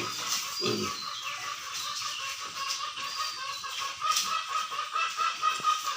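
Farm animals calling: a low grunt just under a second in, then repeated higher-pitched calls.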